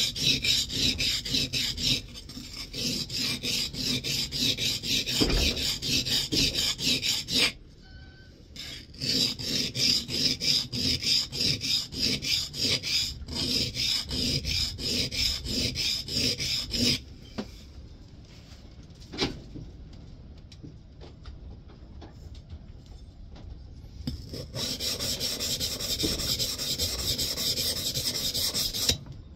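Steel plane iron being rubbed back and forth on a coarse Norton sharpening stone, a fast, even run of gritty scraping strokes as a cambered scrub plane bevel is honed. The strokes come in three runs, with a brief pause about 8 seconds in and a longer pause from about 17 to 24 seconds.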